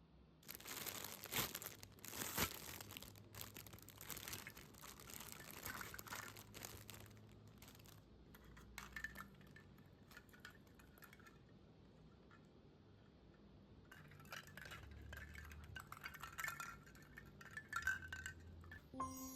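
Christmas bauble lights and their packaging being handled: irregular rustling and crinkling with small clinks, busiest at the start and again near the end, with a quieter stretch in the middle.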